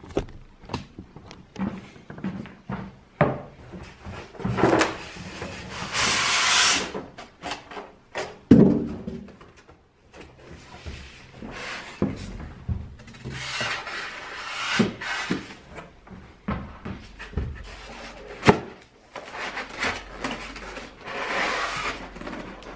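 Cardboard shipping box and packaging inserts scraping and rubbing as a 27-inch iMac is lifted out. The sound comes in several uneven spells, with a sharp knock about 8 s in and another about 18 s in.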